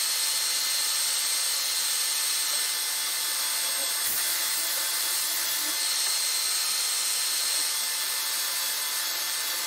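Milling machine spindle drilling through-hardened steel chuck jaws with a 2.5 mm carbide drill: a steady hiss with a constant high whine.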